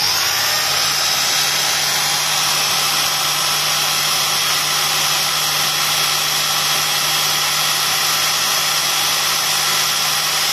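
HANPU TN-12LP electric torque wrench's motor switched on and free-running with no load, a steady whir with a constant whine and hum. It starts abruptly and holds one speed.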